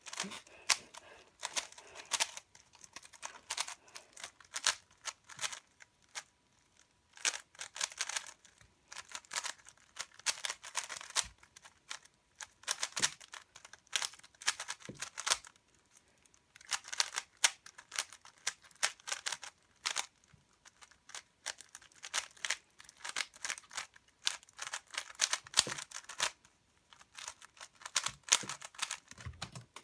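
3x3 Rubik's cube being speedsolved: rapid clicking and clacking of the plastic layers as they are turned, in fast runs of turns broken by short pauses every few seconds.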